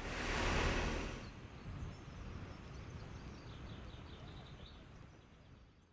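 A car passing close by in the opposite direction, a rush of tyre and engine noise that swells and dies away within the first second or so. Then steady street background noise with a few faint bird chirps, fading out at the end.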